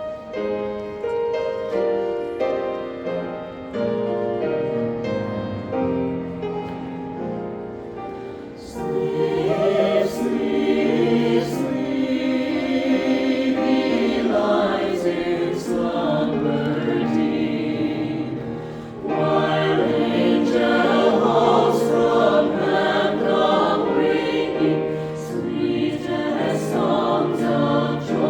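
A choir singing a piece, soft for the first several seconds, then swelling much louder about nine seconds in.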